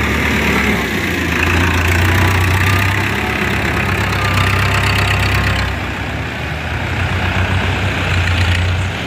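Powertrac Euro tractor's diesel engine running steadily as it pulls a trailer loaded with soil past and away.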